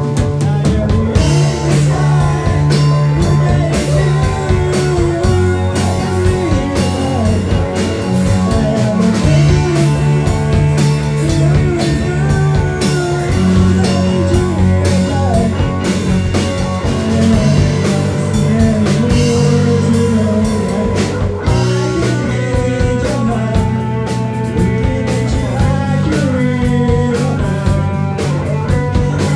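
Live rock band playing: electric guitars, electric bass and drum kit together, loud and continuous.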